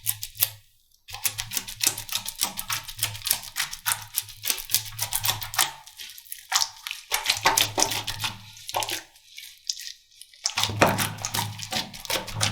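Slime being squeezed and poked by hand, giving dense runs of sharp crackling clicks and pops, broken by a few short pauses.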